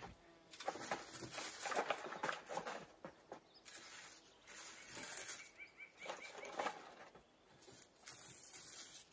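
Dry, crackling rustle of dried herb leaves being handled and packed into a bag. It comes and goes in several spells with short pauses between them.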